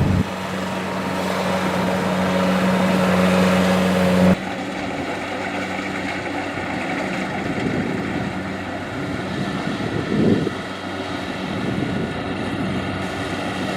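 Kubota DC-70 combine harvester's diesel engine running steadily under harvesting load. The sound drops and changes abruptly about four seconds in, and a brief louder sound comes about ten seconds in.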